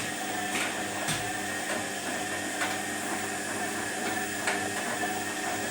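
Washing machine running with its drum turning: a steady motor hum with irregular light clicks and knocks.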